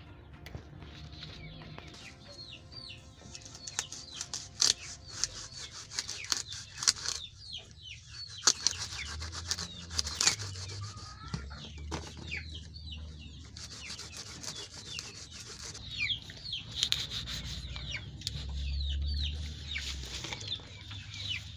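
Crisp rustling and crackling of kangkong (water spinach) stalks and leaves being handled and tied into bundles, with a few soft thumps. Chickens cluck now and then in the background.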